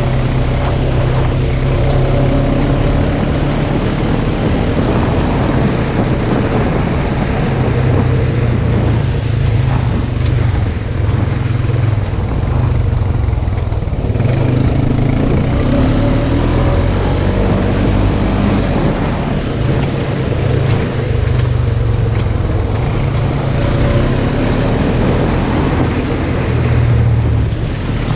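Off-road side-by-side (UTV) engine running under load, its revs rising and falling as the driver works the throttle.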